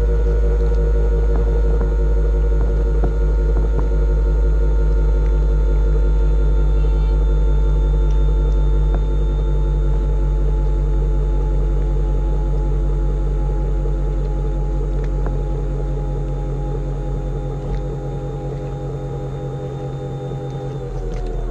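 RC airboat's motor and air propeller running steadily, heard close up from on board. It eases off and its pitch falls slightly over the second half, then it winds down and stops at the very end.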